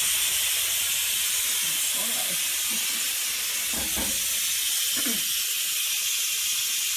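Instant Pot electric pressure cooker venting steam through its opened steam release valve, a loud, steady hiss. This is a manual quick release, letting out the pressure after the broccoli has cooked.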